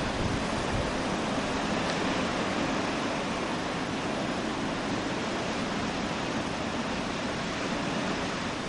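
Blizzard wind blowing steadily, an even noise without breaks.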